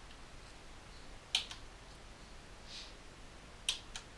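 Two sharp computer-mouse clicks about two seconds apart, advancing a slide presentation; the second has a smaller click just after it.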